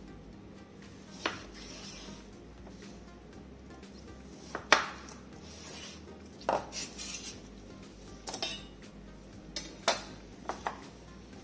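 Kitchen knife knocking on a wooden cutting board while lemons are cut, lemon wedges dropping into a stainless steel saucepan, and the knife laid down on the board: a scatter of sharp knocks and clinks, the loudest about four and a half seconds in.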